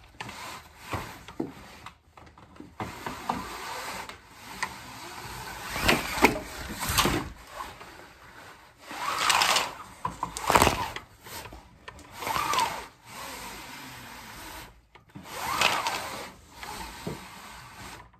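Irregular rustling, bumps and scrapes of things being handled close to the microphone, with several louder knocks spread through.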